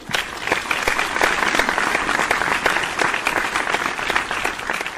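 Audience applauding after a recitation: many hands clapping together, starting abruptly and holding steady.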